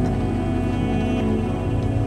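Background music with long held notes over a pulsing low bass.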